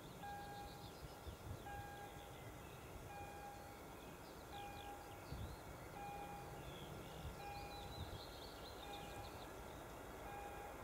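Distant level-crossing warning signal sounding as a train approaches: a steady electronic beep about every second and a half, with birds chirping over a faint low rumble.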